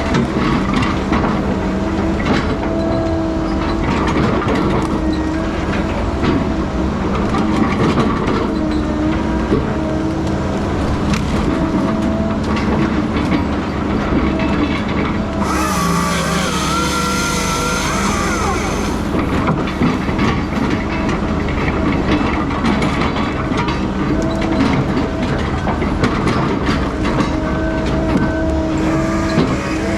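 Heavy logging machinery running steadily, with frequent clanks and knocks. For about three seconds near the middle, a hiss and a higher whine join in.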